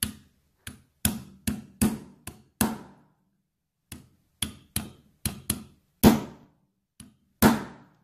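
Ball-peen hammer tapping a socket used as a seal driver, driving an oil seal into a Triumph 650's aluminium points cover. There are about sixteen sharp metallic taps in two runs with a pause of about a second between them, and the heaviest blows come near the end. The seal is going in hard.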